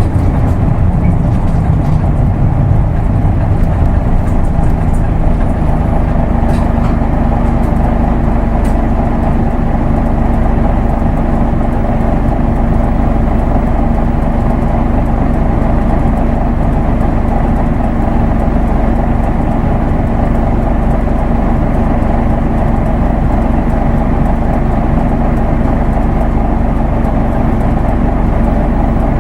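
Isuzu Erga Mio bus's diesel engine and road noise running steadily. The low engine note shifts in the first couple of seconds, then settles into an even drone.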